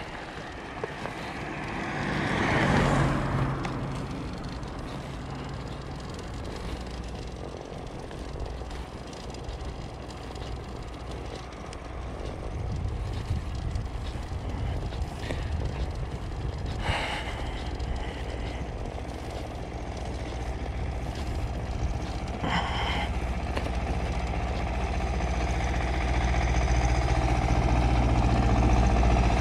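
An engine running with a steady low hum that grows louder toward the end. It follows a brief swell of noise that rises and falls about three seconds in.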